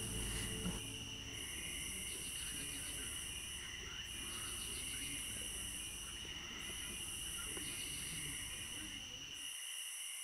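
Night insect chorus: crickets trilling steadily on high, even notes, with a higher buzzing that goes on and off in phrases of about two seconds.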